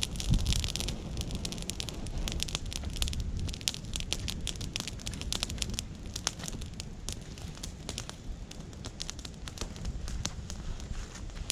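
Wood campfire burning, crackling with many quick sharp pops over a low steady rumble.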